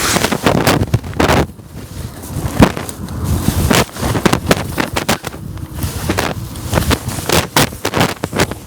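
Irregular sharp knocks and clicks with rustling, as a carp-fishing bivvy is pegged down, with wind buffeting the microphone.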